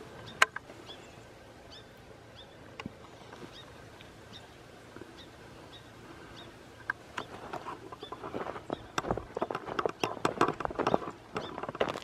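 Footsteps crunching in fresh snow, starting about seven seconds in and growing louder and denser toward the end. Before them it is mostly quiet, with one sharp click just after the start and faint high chirps repeating about once a second.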